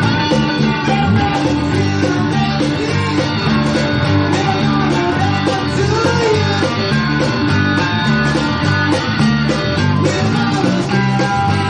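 Live rock band playing a blues number: electric guitar over a repeating bass line and drums.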